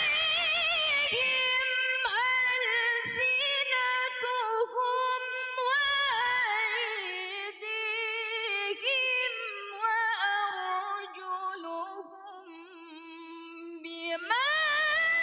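A young woman's solo voice reciting the Qur'an in melodic tilawah style, drawing out a long, ornamented phrase that sinks gradually lower in pitch and grows softer. Shortly before the end a new phrase starts high and loud.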